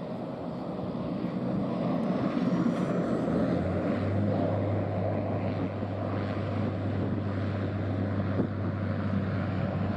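De Havilland Canada Dash 8-400 (Q400) turboprop's engines and propellers running, growing louder over the first couple of seconds, with a steady low propeller drone setting in about four seconds in.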